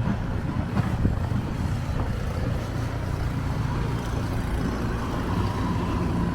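Engine of snow-clearing machinery (plows and a loader) running steadily, a continuous low rumble, with a couple of light knocks in the first two seconds.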